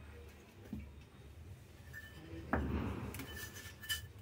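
Wheat flour tipped from a steel bowl onto a steel plate: a soft knock and rustle about two and a half seconds in, then a light metal clink near the end.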